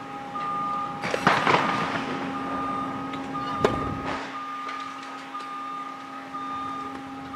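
Tennis racket striking a ball: one sharp crack about three and a half seconds in, after a noisier burst around a second in. Underneath runs a steady hum with a repeating on-off beep.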